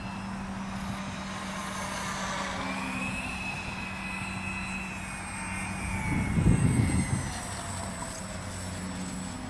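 Radio-controlled model A-10 Warthog's twin jet engines whining as it makes a low pass and comes in to land, the whine gliding up and then down in pitch. A louder low rush comes about six to seven seconds in.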